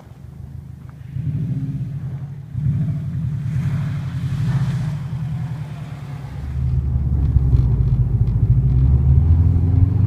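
Subaru Impreza WRX's flat-four boxer engine running at varying revs, with a brief hiss in the middle and getting louder about two-thirds in.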